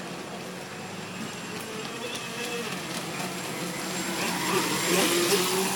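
Radio-controlled jet-ski model boat running across the water, its motor humming steadily, growing louder as it swings in close about four seconds in, with a hiss of spray.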